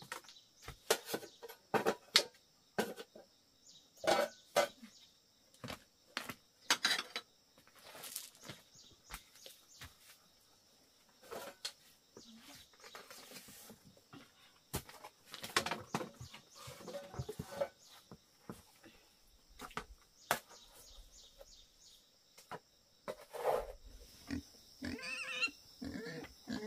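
Pigs grunting in short, irregular bursts.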